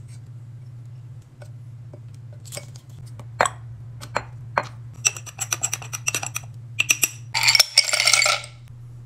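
Glass and bottle clinks and taps on a stone countertop, becoming a quick run of clinks, then ice cubes poured clattering into a glass for about a second, over a low steady hum.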